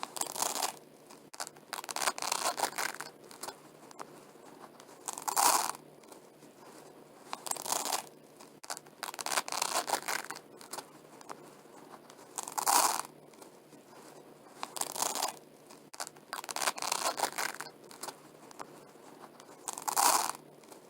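Velcro hook-and-loop strips pulled apart by hand, a crackling rip lasting under a second, repeated about every two to three seconds.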